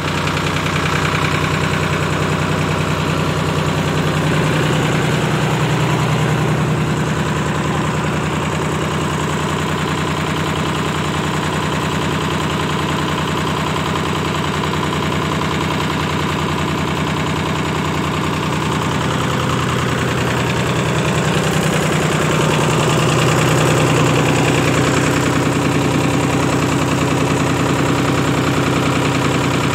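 Lister diesel engine that powers a ship's anchor windlass, running steadily. Its note shifts twice, about a fifth of the way in and again about two-thirds through.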